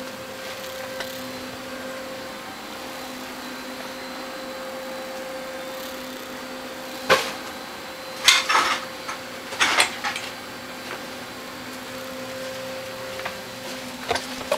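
A steady low hum in a small room, broken by a sharp knock about seven seconds in and a cluster of knocks and clatter between about eight and ten seconds in as things are handled and moved about.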